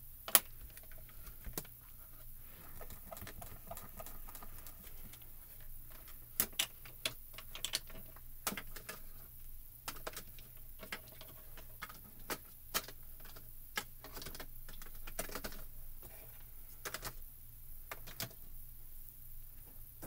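Scattered light clicks and taps of hand stamping: a hinged acrylic stamp-positioning platform and ink pad being handled to stamp the image again, with one sharp click about a third of a second in.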